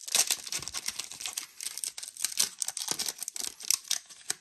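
Foil wrapper of a Pokémon TCG Lost Origin booster pack crinkling and tearing in the hands as it is opened, a dense, irregular crackle.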